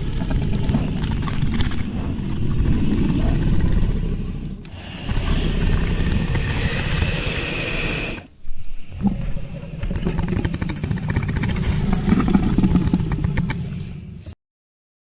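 Dragon sound effects: a heavy, rumbling rushing noise in three long stretches with short dips between them, cutting off abruptly near the end.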